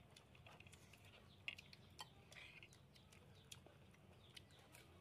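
Near silence: faint room tone with scattered small clicks and a few soft, high chirps about a second and a half to two and a half seconds in.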